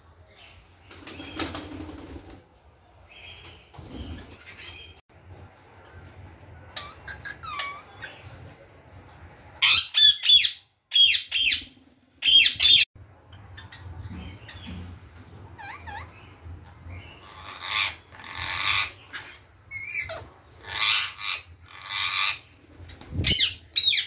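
Indian ringneck parakeets: three loud, harsh screeches close together in the middle, then repeated bursts of wing flapping.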